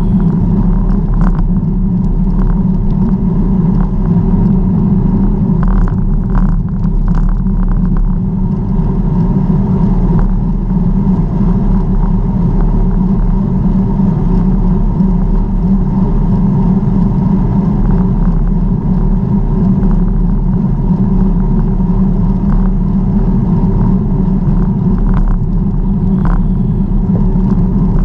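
Steady low rumble of wind and tyre noise from a bicycle ride on the road, with a few faint clicks.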